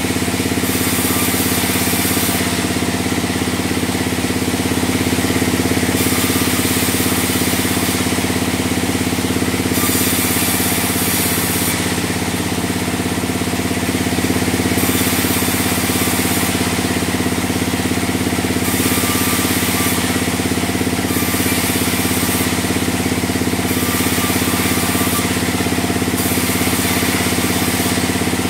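Large log band sawmill running while sawing a log into boards: a steady drone from its drive, with a higher hiss that comes and goes every second or two.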